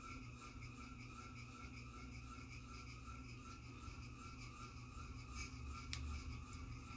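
Faint steady room tone: a low hum with thin high steady tones over it, and a single small click about six seconds in.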